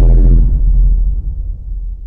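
A deep, rumbling transition sound effect, loudest at first and then fading away, with a low pitched drone under it.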